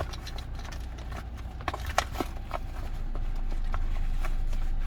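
Scattered light clicks and knocks of multimeter test leads and small plastic plug adapters being handled and tucked into a case pocket, the clearest click about two seconds in, over a steady low hum.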